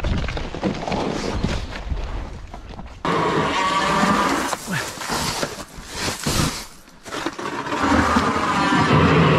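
Power ice auger drilling a hole through lake ice, its motor running under load; it starts abruptly about three seconds in. Before that, wind and the rustle of a fabric ice shelter being handled.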